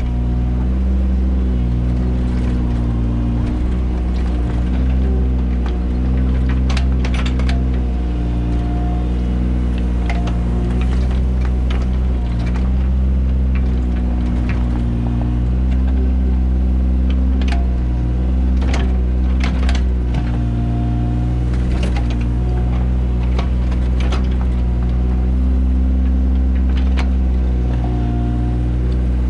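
Mini excavator's engine running steadily under working load, its tone shifting as the hydraulics take up and release load, with a short whine now and then. Sharp clanks and knocks from the digging come in clusters over it.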